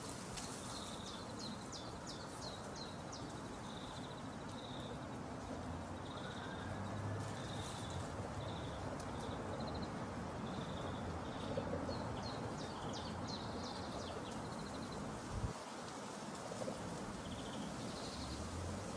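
Outdoor background ambience: a steady hiss with small creatures chirping, short high notes repeated in little runs, and twice a quick cluster of ticks. A brief dull thump about fifteen seconds in.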